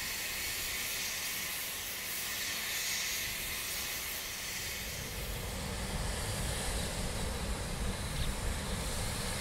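C2 class narrow-gauge steam locomotive standing with steam hissing steadily from around its cylinders. About five seconds in, a low uneven rumble joins the hiss.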